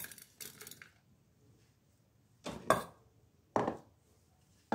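Light scrapes and clicks as sliced chillies are pushed off a wooden chopping board into an enamel bowl, then three short knocks in the second half as the bowl and board are set down on the table.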